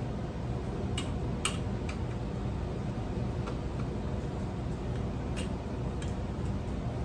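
Scattered light clicks and taps from handling ceiling fan parts and their screws, about eight in all, over a steady low hum.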